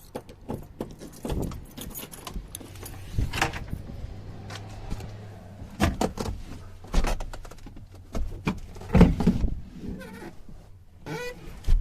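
Rummaging through loose tools and objects: irregular metal clinks, rattles and knocks with a few heavier thuds, over a faint low steady hum.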